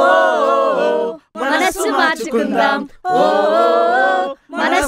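Voices singing together without instruments, long held notes in short phrases with brief breaks between them.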